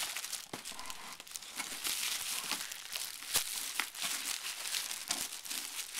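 Clear plastic bag crinkling and crumpling as it is pulled out of a cardboard box and handled, with a stream of sharp crackles, the sharpest a little past the middle.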